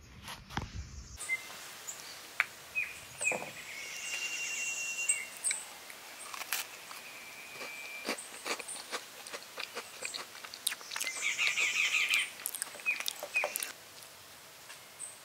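Forest birds chirping and calling: short chirps and a few longer whistled notes, with scattered sharp clicks among them.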